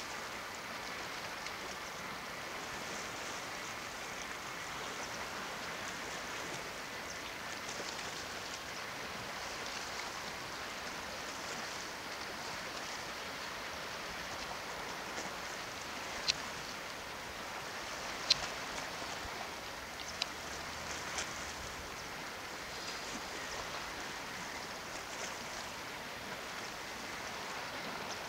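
Calm sea lapping and washing against the rocky shore, a steady fizzing hiss of water, with four sharp clicks a little past halfway.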